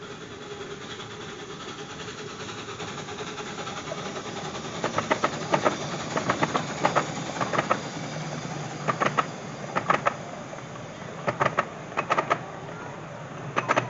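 Miniature steam train passing: the locomotive's running noise grows steadily as it approaches, then the carriage wheels clack over the rail crossing in quick runs of clicks, a run about every second as each set of wheels goes over.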